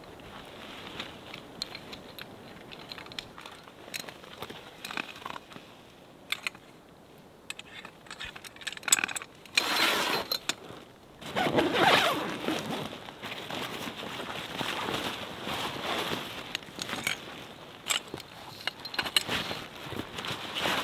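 Heavy tent fabric rustling and scraping as a Savotta Hawu 4 hot tent is unrolled and handled by hand, with scattered clicks and knocks from the tent pole. The loudest rustling comes in two bursts about halfway through.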